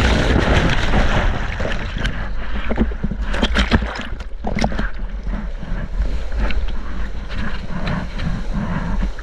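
Churning whitewater heard from a camera pulled under a breaking ocean wave: a steady low rumble of turbulent water against the microphone, with many sharp splashes and bubbling pops throughout.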